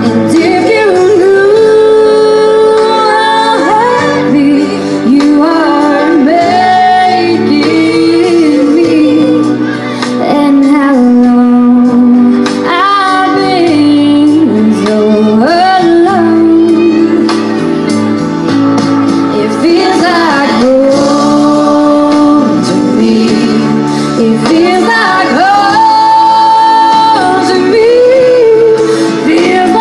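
A woman singing a melody live through a PA with instrumental accompaniment, holding long notes about two-thirds of the way through and again near the end.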